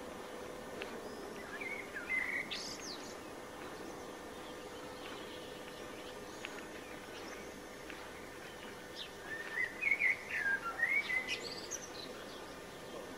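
Small birds chirping: a short burst about two seconds in and a longer run of chirps near the end, over a steady background hiss with a faint hum.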